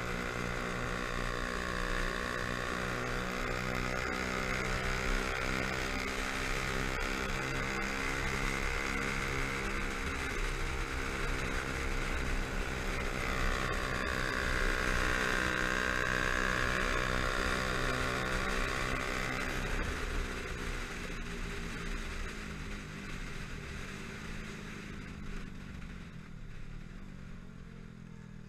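Yamaha YZF-R125's single-cylinder four-stroke engine running at a steady cruise, heard with wind rush from the helmet-mounted camera. Over the last several seconds the engine note and wind fall away as the bike slows.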